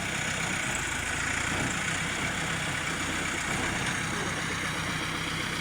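Backhoe loader's diesel engine running steadily at idle.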